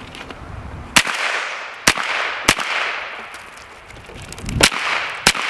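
Five sharp gunshots from a PSA AK-V 9mm carbine fired semi-automatically at an irregular pace, each crack trailing off in an echo. The shots are the last rounds of a five- or six-round load fired at the target.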